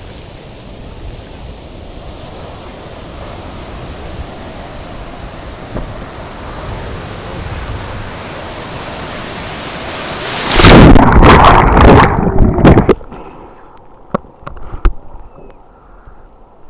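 Surf and wind rushing on the mic of a camera held in the ocean waves. About ten seconds in, a wave washes over it with a loud rushing splash lasting a couple of seconds. The sound then turns muffled, with only a dull low rumble and scattered clicks, as the camera goes under water.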